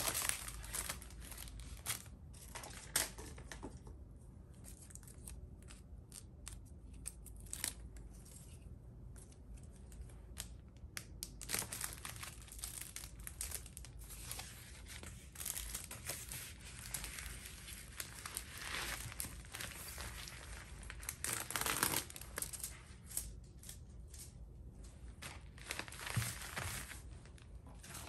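Paper cash envelopes and plastic packaging being handled on a desk: rustling and crinkling with scattered light taps, and louder swells of crinkling about 12, 19 and 22 seconds in.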